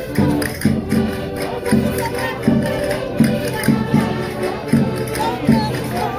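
Concertinas playing a lively Minho folk dance tune live, sustained reedy chords over a steady pulsing beat of roughly one strong accent every 0.7 s.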